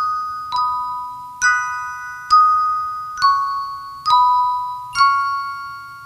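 Background music: a slow, gentle melody of single bell-like mallet notes, about one a second, each struck and then ringing away.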